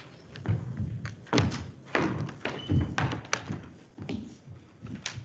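A string of irregular knocks and thumps, roughly two a second, the loudest about a second and a half in.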